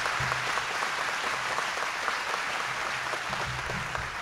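A large audience applauding steadily, easing off a little near the end.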